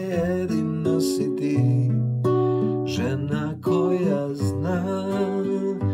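Acoustic guitar strummed and picked in a slow song, with a man singing along.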